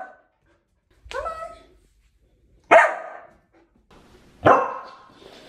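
Samoyed barking three times, about a second and a half apart; the first bark is softer, the last two sharper and louder.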